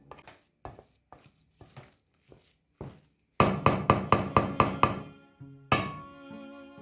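Kitchen utensil knocks: a few faint light taps, then a quick run of about seven sharp knocks at roughly four a second. Near the end comes a single clink that rings on briefly.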